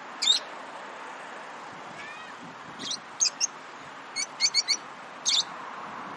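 Lovebirds giving short, sharp, high-pitched chirps in little groups: one near the start, three around three seconds in, a quick run of four just after four seconds, and one more near the end, over a steady background hiss.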